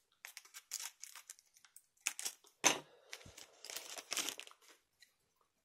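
Plastic booster-pack wrapper crinkling and rustling as it is cut open with scissors and handled, in a string of short crackles with one sharp click about two and a half seconds in.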